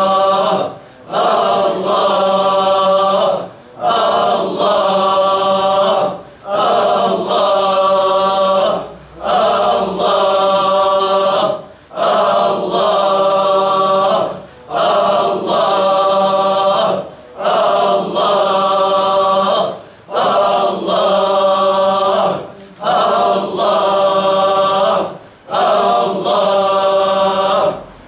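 A circle of men chanting the single divine name 'Allah' in unison as Sufi dhikr. Long, drawn-out phrases repeat about every two and a half seconds, each followed by a brief pause for breath.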